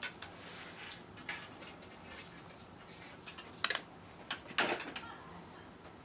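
Light scraping and rustling with a few sharp clicks, the loudest about two thirds of the way in: a taped wire being fed through the truck cab's panels.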